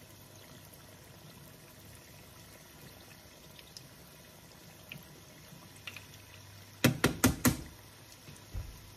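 Egg rolls and wontons deep-frying in a pan of hot oil: a faint steady bubbling sizzle with scattered small pops. About seven seconds in comes a quick run of five loud clacks from metal kitchen tongs.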